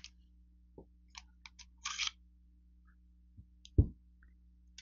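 Short metallic clicks and scrapes of an IMI Baby Eagle (Jericho 941) pistol being field-stripped, the slide stop coming out and the steel slide drawn off the frame rails, then a single dull thud about four seconds in as the frame is set down on carpet.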